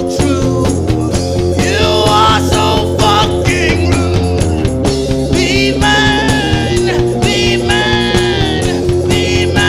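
Live rock band playing: electric guitars, bass and drums, with a high lead line that bends and slides in pitch over steady low bass notes.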